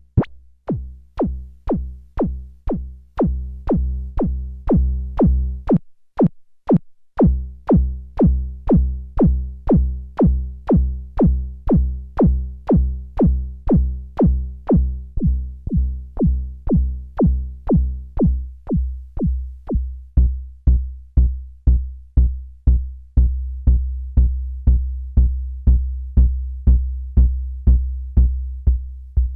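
Electronic jam on a Behringer Neutron analog synthesizer: short, sharp drum-machine-like hits about two to three a second over a deep, pulsing bass line. The pattern stops for about a second around six seconds in. The upper tones drop out around eighteen seconds, leaving the beat and the bass.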